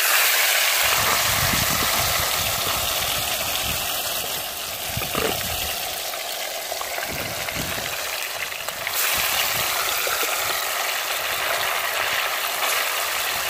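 Whole fish deep-frying in hot oil in a cast-iron pot: a loud, steady sizzle that starts suddenly as the fish goes into the oil. It swells again about nine seconds in as a second fish is added.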